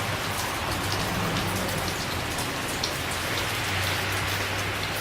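Rain falling steadily, with many individual drops heard as short ticks.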